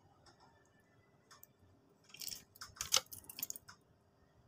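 Handling noise from a PCP airgun being cocked and loaded between shots: a faint click about a second in, then a quick run of small clicks and rattles lasting about two seconds.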